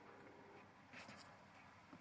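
Near silence: workshop room tone, with a few faint ticks about a second in.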